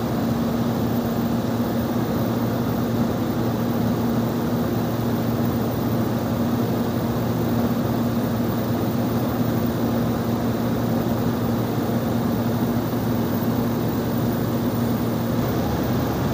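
Steady drone of a small propeller airplane's engine and propeller heard from inside the cockpit in flight, an even rushing noise with a constant low hum.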